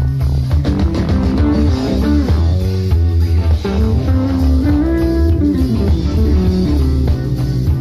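A jazz-fusion band playing live, with electric bass carrying a strong low line under melodic lines that bend up and down in pitch.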